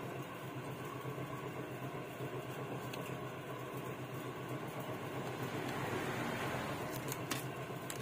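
Steady hum of a running fan, with a few light clicks near the end.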